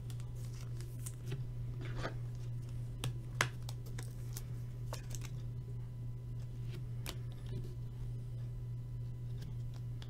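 Trading cards being handled: light clicks, taps and rustles of cards and plastic sleeves, a sharper tap about three and a half seconds in, over a steady low electrical hum.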